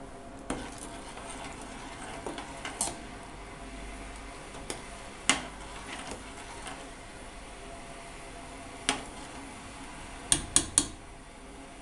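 A metal spoon stirring berries in water in a stainless steel pot, scraping and knocking against the pot in scattered single clinks, with three quick clinks close together near the end.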